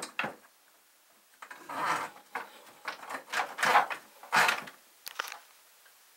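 Two sharp knocks, then a string of irregular scraping and rubbing strokes as a tool and hands work on the drain plumbing inside a sink cabinet. The scraping stops a little after five seconds in.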